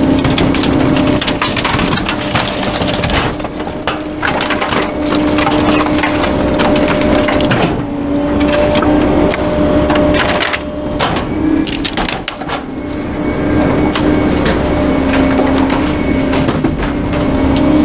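Rear-loader garbage truck's hydraulic packer blade crushing wooden furniture and a mattress in the hopper, with repeated wood cracking and splintering over a steady hum from the truck.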